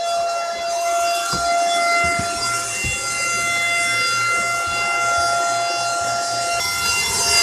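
Dirt Devil Power Stick 4-in-1 stick vacuum running, its motor making a steady high whine, with a few light knocks as the head moves over the floor.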